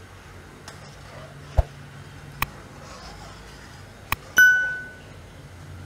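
Steel spatula knocking against a steel kadai while stirring milk: a few sharp metallic clinks, the loudest near the end ringing briefly before it dies away.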